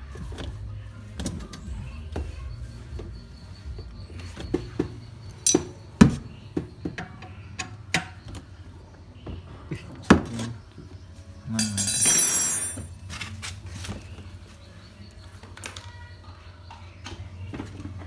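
Handling noise inside a washing machine cabinet: scattered clicks and knocks as hands work among the wiring and plastic parts, the sharpest at about six and ten seconds in. A short rasping scrape about twelve seconds in, over a steady low hum.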